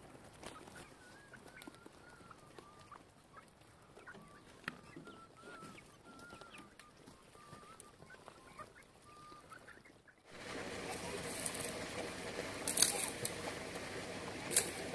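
Hens clucking faintly, with a soft wavering trill. About ten seconds in the sound changes to a louder steady open-air hiss with a few sharp clicks of a knife against a metal tray as raw lamb is cut.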